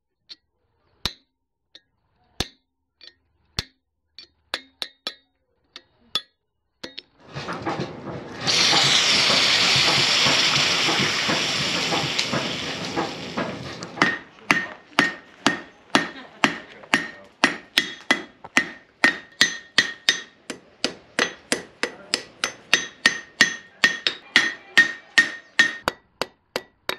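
Blacksmith's hammer striking hot steel on an anvil in a steady rhythm, about two and a half blows a second, each blow leaving a ringing note, as an old file is forged into a crevicing tool. Before the hammering there are a few scattered light taps, then a loud rushing noise lasting about six seconds.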